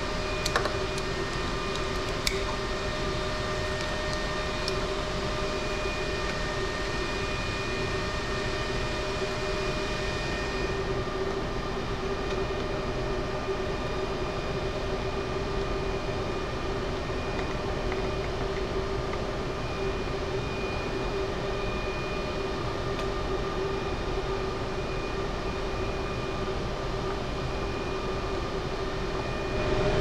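Steady machine hum holding a constant pitch throughout, with a couple of light clicks of hand tools in the first few seconds.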